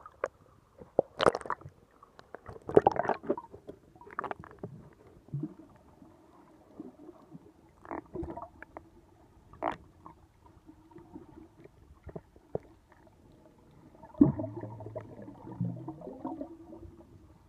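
Water splashing as the camera breaks the surface, with sharp irregular splashes in the first few seconds. Then muffled underwater gurgling and bubbling with scattered pops, and a louder stretch of bubbling about fourteen seconds in as a snorkeler dives past.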